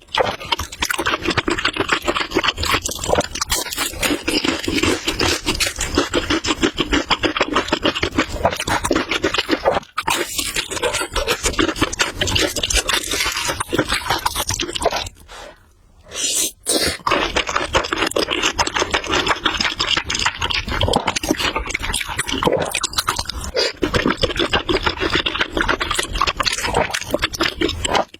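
Noodles being eaten close to the microphone: continuous chewing, with a short break about ten seconds in and a longer pause around the middle.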